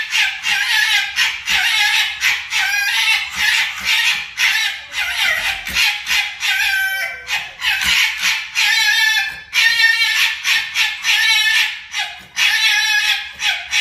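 A white fox gekkering at a red fox in a squabble: a rapid, harsh, stuttering high-pitched chatter, breaking from about eight seconds in into a string of short, pitched wailing cries.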